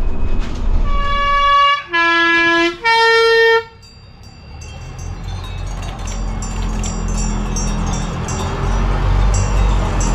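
Swiss PostBus three-tone horn sounding its tune, three held notes in turn (high, low, then middle), each under a second. Then the bus drives past and its engine's low rumble builds.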